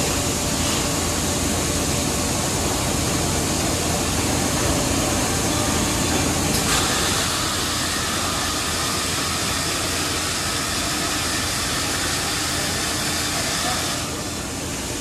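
Biesse Rover 20 CNC machining center running, its head travelling along the X axis: a steady mechanical hum and whir that drops slightly about 14 seconds in.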